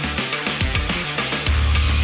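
Instrumental music with heavy bass and a driving drum beat, played back through Apple wireless earbuds and recorded at an artificial ear simulator. A deep bass note comes in and holds from about one and a half seconds in.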